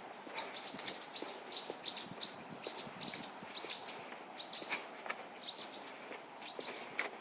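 A songbird calling in a fast series of short, high chirps, each sliding down in pitch. The run goes on for about five seconds, pauses briefly, then a few more chirps come near the end.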